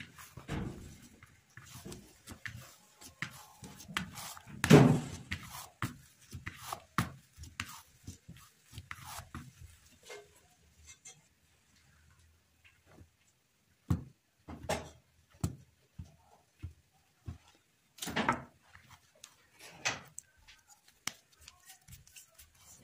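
Hands pressing, patting and shaping soft bread dough on a plastic-covered worktop, with a knife cutting into it: irregular soft thuds, pats and knocks, the loudest about five seconds in.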